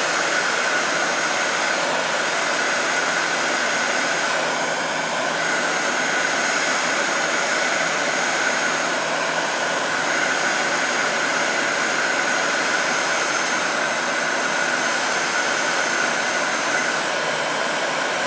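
Heat gun running steadily, blowing hot air onto a Kydex holster to soften the plastic around the magazine release. A steady whine sits over the rush of air.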